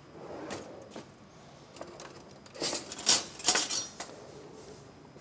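Metal kitchen utensils clinking and knocking against stainless steel pots on the stove, a few light knocks, then a cluster of sharper clinks about two and a half seconds in.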